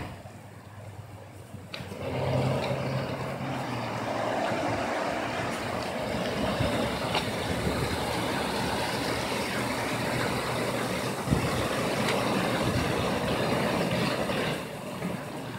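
Swollen, muddy creek rushing in flood after heavy rain: a steady, even rush of water that comes up about two seconds in and holds.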